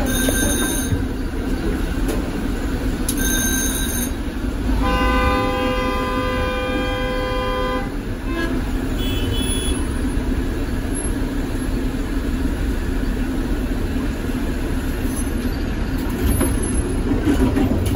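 Tatra KT4D articulated tram running with a steady low rumble. About five seconds in, a horn sounds once for about three seconds, and two brief high-pitched tones come shortly before it.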